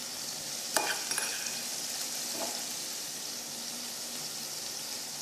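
Beef burger patties frying in olive oil in a pan at medium heat, giving a steady high sizzle. A metal spoon spreading ketchup on a bun clicks sharply a few times about a second in.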